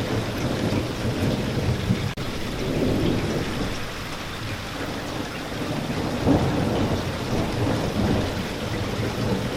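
Steady rain with a continuous low rolling rumble of thunder that swells and eases, and a split-second gap about two seconds in.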